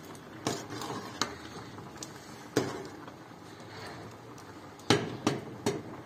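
Kitchenware knocking and clinking during cooking: about seven separate sharp knocks, the loudest about five seconds in.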